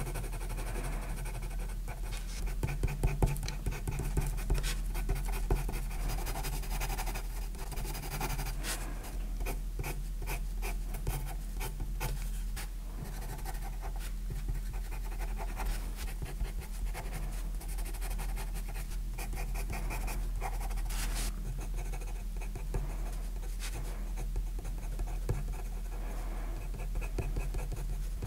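Staedtler Karat watercolour pencil scratching across paper in many quick short strokes, laying in and blending shading, over a steady low hum.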